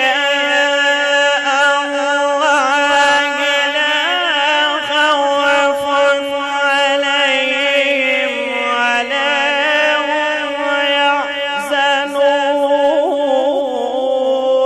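A man's solo Quran recitation in the melodic tajweed style, stretching a phrase into long held notes with wavering ornaments. The pitch steps down a little about halfway through and rises again near the end.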